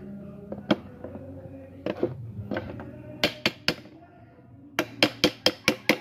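Hard taps of a screwdriver against PVC pipe: a few spaced knocks, three quick ones about halfway, then a fast run of about five a second near the end.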